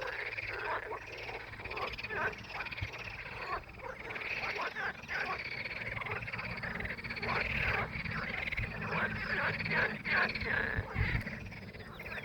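Many frogs calling together in a dense, continuous chorus of short overlapping croaks.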